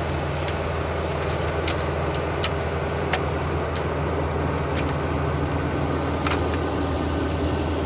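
TYM 574 tractor's diesel engine running steadily under load while driving a flail mower through grass, with scattered sharp ticks.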